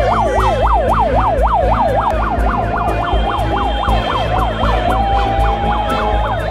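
A yelping siren, its pitch sweeping rapidly up and down about four times a second, changing to a steadier held tone about five seconds in, over a low rumble.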